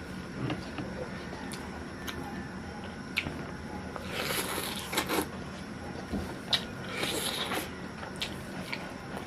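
Close-up eating sounds of a person working through a roasted chicken: scattered small clicks of chewing and handling food, with two short crackly passages about four and seven seconds in.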